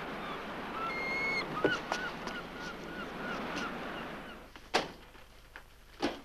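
Seabirds calling in a quick run of short, repeated cries over a steady rush of wind and sea. The background dies away, and then come two sharp knocks about a second apart.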